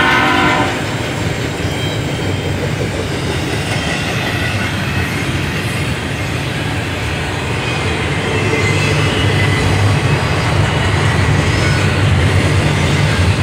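Double-stack container train rolling past: a steady rumble and rattle of wheels on rail from the passing well cars. A train horn cuts off about half a second in, and the rumble grows a little louder in the second half.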